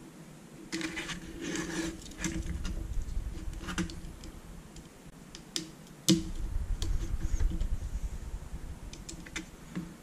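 Hands handling a metal-framed LCD module and plugging small cable connectors into it: scattered light clicks and rustling, with one sharp click about six seconds in.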